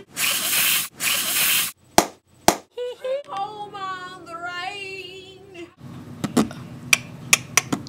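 Two bursts of hissing noise, then two sharp clicks, then a boy singing with an acoustic guitar for about three seconds, followed by a run of scattered clicks and taps.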